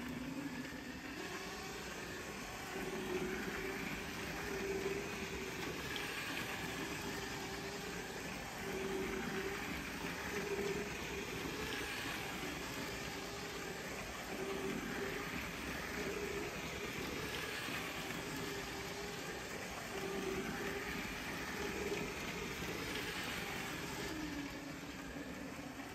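Lego Power Functions toy train running laps on plastic track: a steady small electric motor hum that rises and falls slightly in level.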